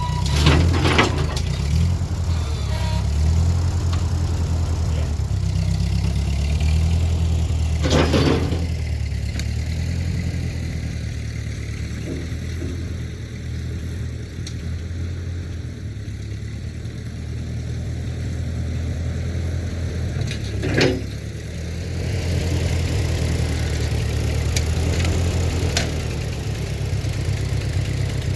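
An engine running steadily at a low rumble while a heavy log is shoved about, with a few loud knocks: two close together right at the start, one about eight seconds in and one about twenty-one seconds in.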